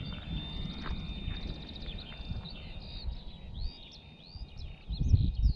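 Small birds chirping repeatedly, with wind rumbling on the microphone and a steady thin high tone; a few louder low thumps come near the end.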